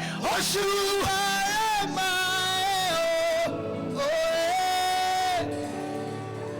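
Worship song: a solo voice singing long held notes over a soft instrumental accompaniment.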